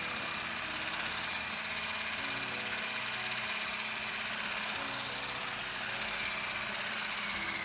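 Electric hand mixer running steadily, its wire beaters whipping egg whites and sugar in a glass bowl. The whites are at the stiff-peak stage.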